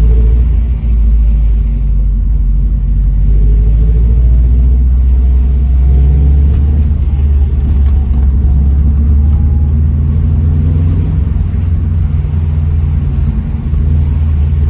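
Subaru Impreza GC8's flat-four engine running with the car in motion: a loud, steady low rumble, with a faint thin tone that drifts slowly in pitch through the middle.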